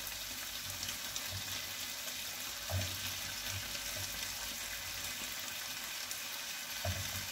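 Sliced mushrooms frying in hot oil in a wok with shallots and garlic: a steady sizzle.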